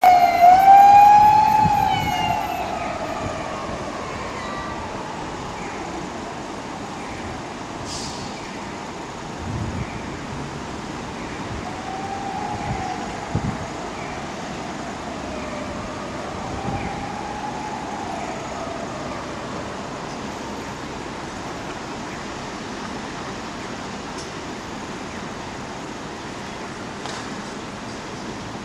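An emergency vehicle's siren wailing, its pitch rising and falling slowly; it is loudest at the start, fades over the first few seconds, then returns as fainter wails, over steady city traffic noise.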